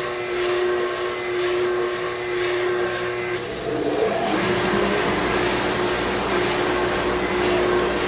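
Spindle sander with a small-diameter 60-grit sleeve running with a steady motor hum and whine. About three and a half seconds in, the motor note sags briefly and a gritty sanding rasp grows as a mahogany bird blank is pressed against the spinning spindle.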